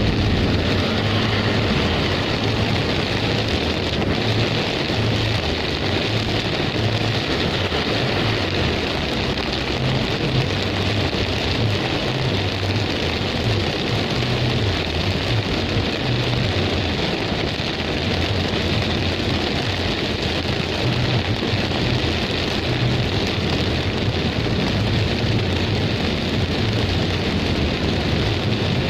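Heavy storm rain pouring down as a steady rushing hiss, with an uneven low rumble underneath.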